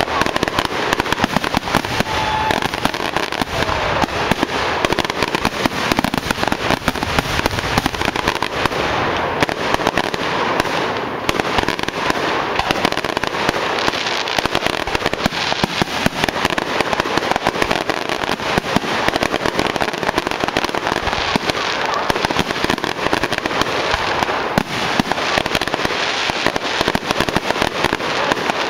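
Aerial fireworks going off without a break: a dense, rapid run of bursting shells and popping and crackling stars.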